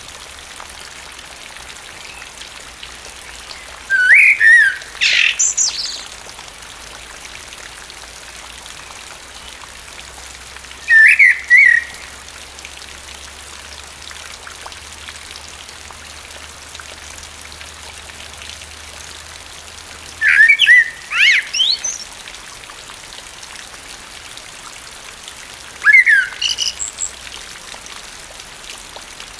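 Common blackbird singing in steady rain: four separate song phrases, each starting with lower fluty notes and ending in higher twittering, over a constant hiss of rainfall.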